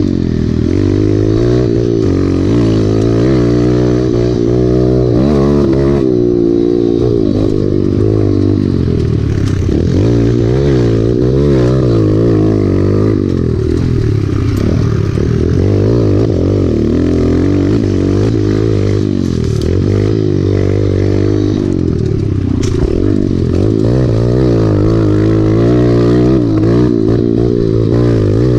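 Small pit bike's single-cylinder engine being ridden hard around a tight dirt track, its pitch rising and falling over and over as the throttle is opened and closed through the turns, heard from on the bike itself.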